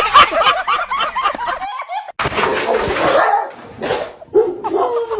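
A dog barking, a quick run of short calls in the first two seconds, then a burst of noise, then more calls.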